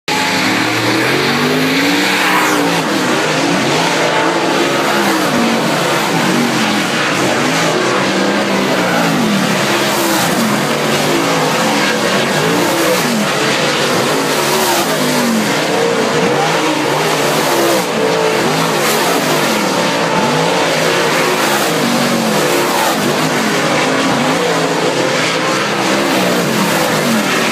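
Several dirt late model race cars' V8 engines revving on and off the throttle around the dirt oval during hot laps. Their overlapping engine notes rise and fall in pitch over and over as the cars go by.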